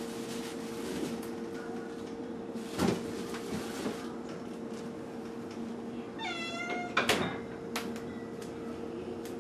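Domestic mackerel tabby cat giving one short whiny meow about six seconds in, its pitch dropping a little and then holding, as it begs for wet food. Sharp knocks come a few seconds before the meow and right after it, over a steady hum.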